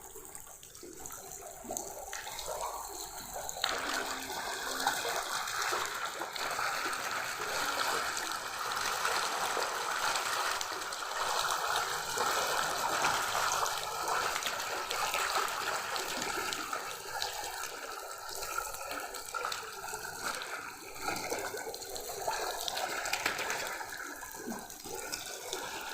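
Water in a biofloc fish tank, splashing and gushing steadily.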